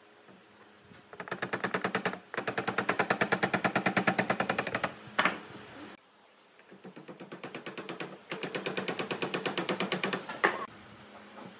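Power drill boring into a pine tenon, run twice for a few seconds each time, with a fast even rattle of about ten pulses a second. The second run starts softer and grows louder.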